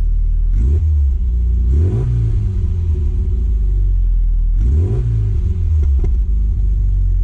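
1997 Rover Mini Cooper MPI's 1275 cc A-series four-cylinder engine heard at the tailpipe, idling with a few throttle blips, the revs rising and falling back, the biggest about two and five seconds in.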